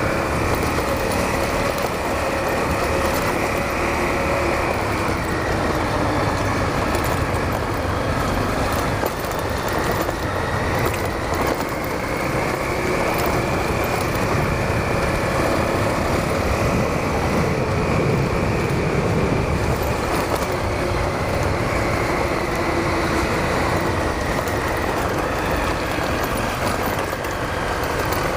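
Honda CRF250L dual-sport motorcycle's single-cylinder engine running under way on a trail ride, its pitch rising and falling gently with the throttle over a steady rush of noise.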